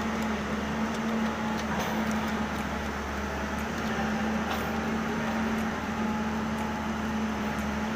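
Steady mechanical hum: one constant tone over a deeper drone and a noisy haze, with a few faint clicks.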